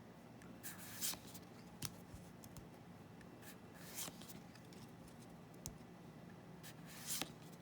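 Faint swishes and light flicks of Magic: The Gathering trading cards being slid and flipped through by hand, a handful of short strokes spread irregularly.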